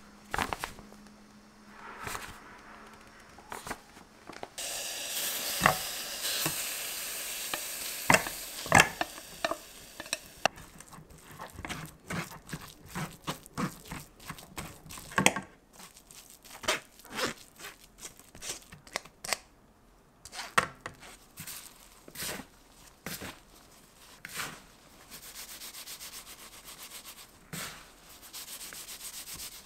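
Food-prep handling sounds: a wooden spatula scraping and pressing steamed kabocha through a metal mesh sieve, with many sharp taps and knocks against the sieve and bowl. In the last few seconds, hands in plastic gloves rub glutinous rice flour into the pumpkin with a soft, steady rubbing.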